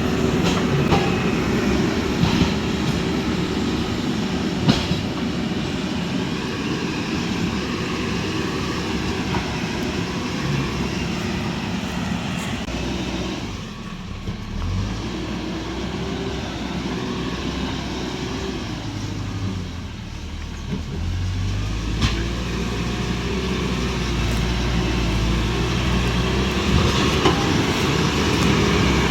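Diesel tractor engine running hard on road-construction work, its note easing off and picking up again a couple of times, with a few sharp knocks.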